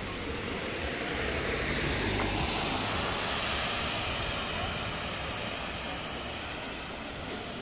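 A car passing on wet asphalt: the tyres' hiss on the wet road swells as it goes by, then slowly fades as it drives away.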